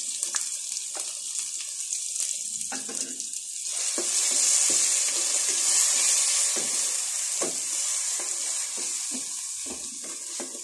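A ground chilli spice paste sizzling in hot oil as it is stirred in, a steady frying hiss that grows louder about four seconds in. Light scrapes and taps come from the spoon against the pot.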